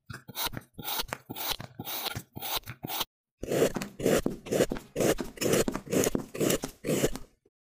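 A metal blade slicing through soft red foam with a quick run of short crunches. After a brief pause, scissors snip through a blue foam cone, about two crunchy snips a second.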